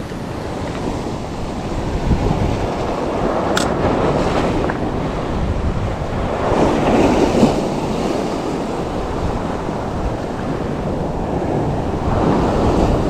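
Ocean waves surging and washing over coastal rocks, with wind buffeting the microphone. A wave swells up about six to seven seconds in, and another builds near the end.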